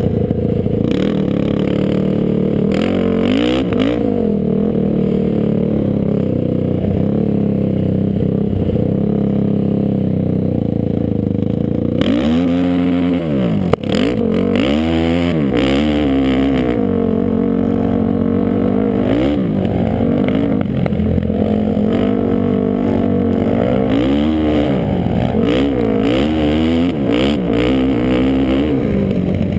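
Sport ATV engine revving up and falling off again and again as the quad is ridden hard, heard close up from the machine itself. A single sharp knock about fourteen seconds in.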